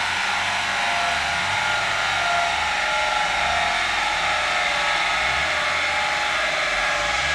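Vauxhall Vectra 1.9 CDTI four-cylinder turbodiesel, fitted with a hybrid turbo and no catalysts, running at low revs on a rolling road. A steady loud rushing noise sits over the engine, with no rise in revs.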